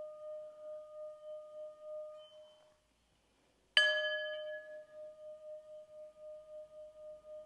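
Small singing bowl ringing and fading away to silence, then struck once about four seconds in with a sharp attack. The new note hums on with a slow, steady wavering throb.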